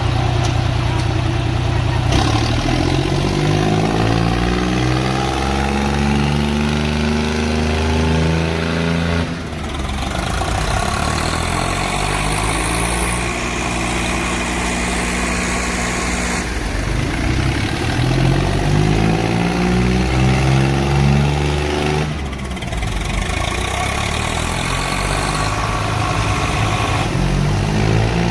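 Diesel tractor engine revving up repeatedly: its pitch climbs and then holds steady, four times over, with abrupt breaks between runs.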